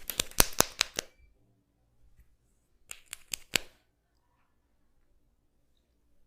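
Sharp snaps made by a masseur's hands during a head massage: a quick run of about seven cracks in the first second, then a second run of about five about three seconds in.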